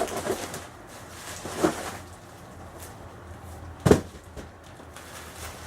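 Cardboard shipping box being handled and opened: short scraping and knocking noises, the sharpest knock about four seconds in.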